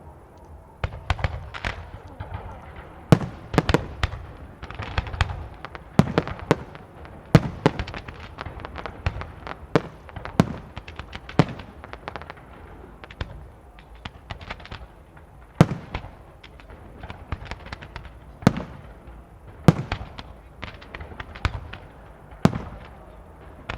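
Aerial fireworks shells bursting overhead in an irregular, rapid sequence of sharp bangs, a few a second, with a low rumble and crackle between them.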